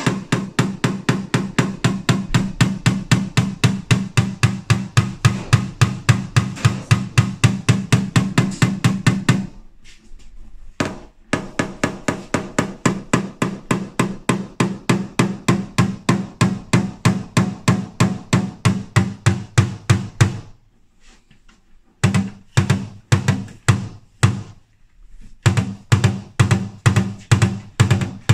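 Hammer rapidly tapping a knockdown punch against a car's steel rear fender, about five blows a second in runs with short pauses. The blows are knocking down high spots left after glue-pull dent repair.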